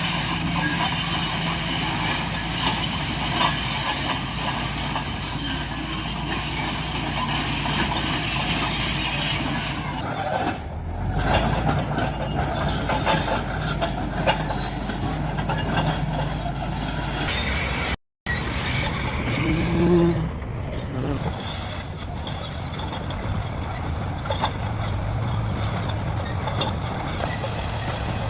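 Heavy diesel construction machinery running and working, a continuous engine rumble with hiss. The sound cuts out for an instant about two-thirds of the way through.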